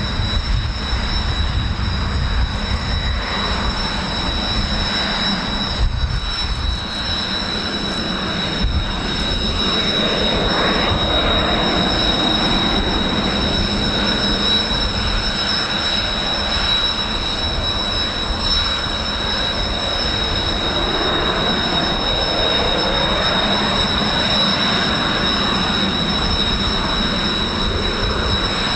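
Jet engines of Kawasaki T-4 trainers running, a steady high-pitched whine at two pitches, with the engine noise swelling and fading twice, over a low rumble of wind on the microphone.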